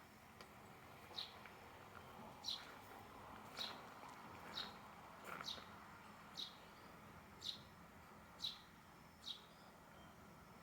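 A small animal chirping: short, high-pitched chirps repeating about once a second over a quiet background.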